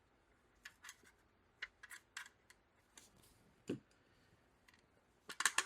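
Faint, scattered light clicks and taps from handling a 3D-printed trackball housing, with a slightly heavier knock partway through and a quick run of clicks near the end.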